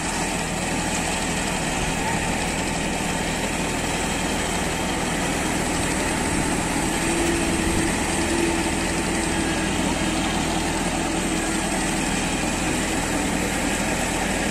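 Engine running at a steady idle, with a faint hum that comes up a little in the middle and fades again.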